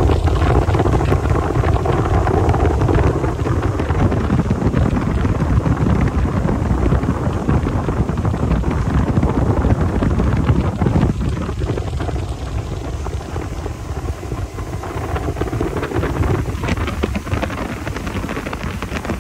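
Wind buffeting the microphone of a motorboat running fast, over the steady drone of its twin outboard motors and rushing water; it gets somewhat quieter in the second half.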